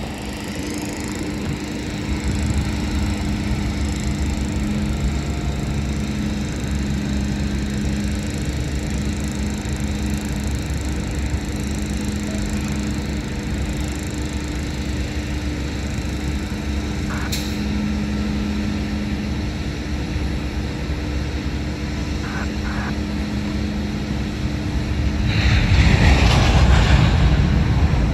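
Freight train of covered hopper cars rolling slowly past: a steady low rumble of wheels on rail with a steady hum under it. It swells into a louder rushing noise near the end.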